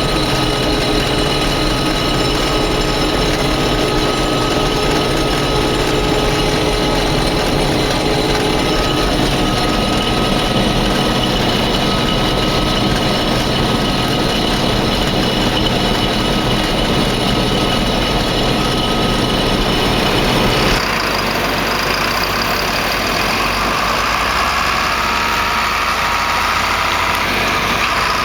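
Combine harvester running steadily while combining wheat: a continuous machine noise with several held tones. About 21 seconds in, the sound changes abruptly to a different steady mix.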